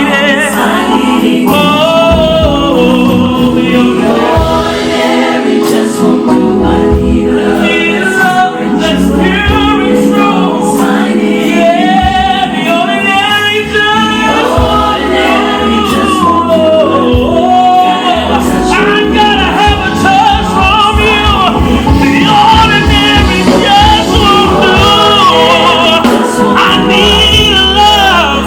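Live gospel vocal group singing over sustained instrumental chords, the voices gliding through long, ornamented runs with no clear words.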